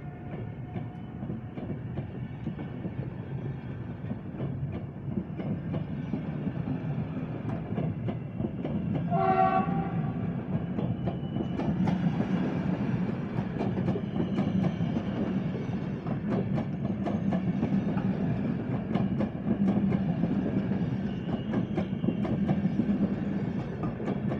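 PKP Intercity passenger coaches rolling past with a steady low rumble, their wheels clicking over the rail joints. A short horn blast sounds about nine seconds in.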